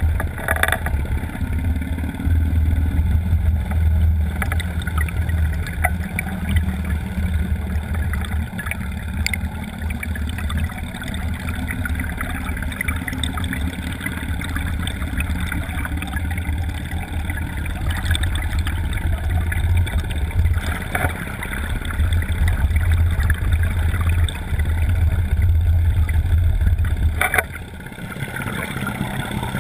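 Motorboat under way: a steady low rumble with rushing noise over the camera. The sound dips briefly near the end.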